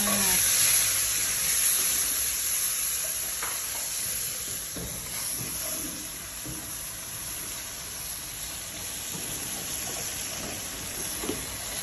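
Tamarind water in a hot wok of shallots, garlic and chillies, sizzling and hissing: loudest for the first couple of seconds, then settling to a steady, quieter simmer. A wooden spatula stirs through it with a few faint knocks.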